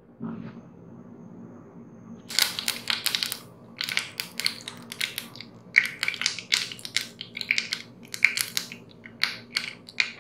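Mustard seeds spluttering in hot coconut oil: a faint sizzle at first, then from about two seconds in, sharp pops and crackles coming thick and fast and irregular as the seeds burst. The crackling is the sign that the oil is hot enough for tempering.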